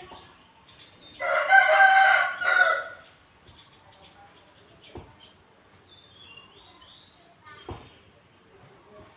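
A rooster crowing once, a single drawn-out call starting about a second in and lasting nearly two seconds, followed later by a few faint clicks.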